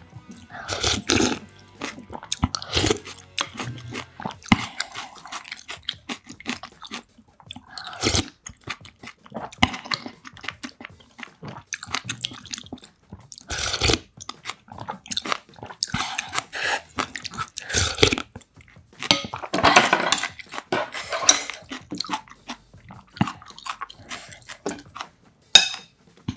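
Close-miked eating sounds: soup slurped from a spoon and wet, crunchy chewing in short, irregular bursts. A sharp click of chopsticks comes near the end.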